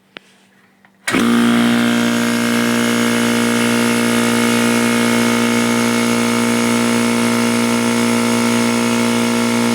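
Craftsman air compressor's electric motor and piston pump switching on about a second in and running at a steady pitch, on a test run after its connecting rod and piston were reinstalled.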